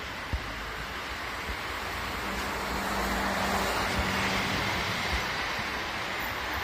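A Madrid EMT city bus passes close by. Its engine and tyre noise swell to a peak midway, with a steady hum while it goes past, over the general noise of street traffic.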